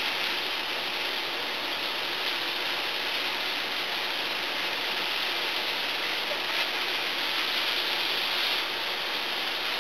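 Vegetables and spices for an eggplant sauce sizzling steadily in a hot skillet as they are stirred.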